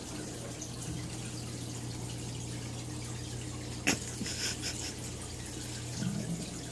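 Aquarium filter running: water trickling into the tank over a steady low hum, with a single sharp click about four seconds in.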